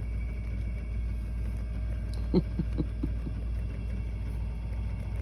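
A steady low hum, with a quick run of about four short pitched sounds about two and a half seconds in.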